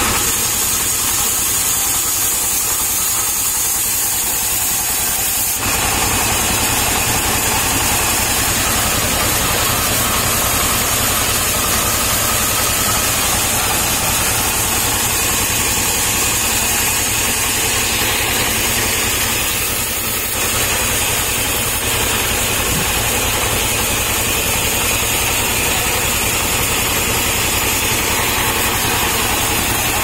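Large band sawmill running steadily while a palm trunk is sawn lengthwise. The sound grows brighter about five and a half seconds in.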